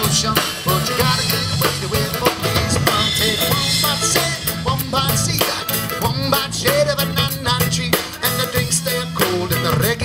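Live band playing an instrumental passage: a drum kit keeps a steady beat under bass and melody instruments.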